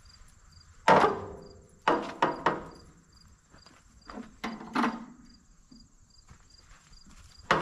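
Metal clanks of a steel bar on the hand-crank of a 1949 Case LA's seized 403 cubic inch engine as it is levered round. The engine is still tight and barely turns. A loud ringing clank comes about a second in, then several more in short groups, with crickets chirping steadily behind.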